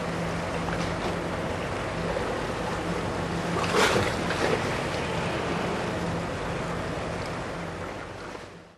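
A moored car ferry's engine runs as a low, steady hum beneath harbour water lapping and wind on the microphone. A brief louder rush of noise comes about four seconds in, and the sound fades out near the end.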